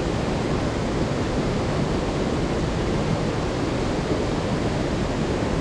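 Fast-flowing mountain stream rushing steadily, an even wash of water noise with no breaks.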